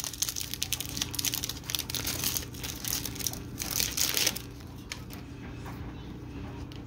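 Foil wrapper of a trading-card pack crinkling and rustling as it is opened and the cards are pulled out, stopping about four and a half seconds in, leaving a faint steady hum.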